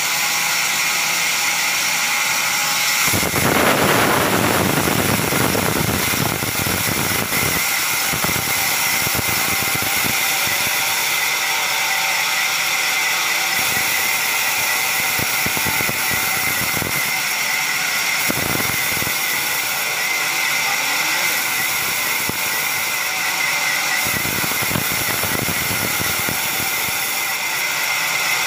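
Large vertical band saw running with a steady high whine, its blade ripping through a thick timber slab fed by hand. The rough cutting noise grows louder about three seconds in and rises and falls with the feed.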